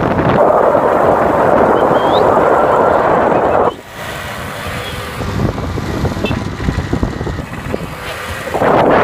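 Wind buffeting a phone's microphone while riding: a loud rushing noise. It drops suddenly about four seconds in, leaving a quieter rumble, and comes back near the end.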